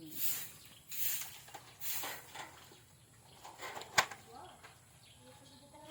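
Three short rustles about a second apart, then a single sharp click about four seconds in.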